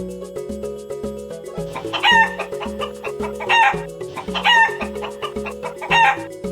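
A hen calling four times in short, loud, bending calls, over background music with a steady beat.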